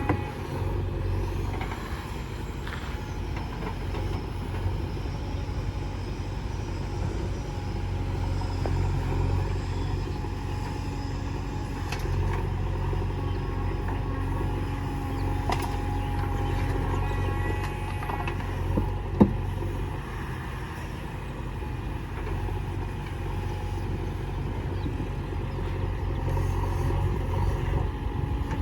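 Heavy diesel earthmoving machinery running steadily, with a few faint metallic clicks. A single sharp knock comes about two-thirds of the way through.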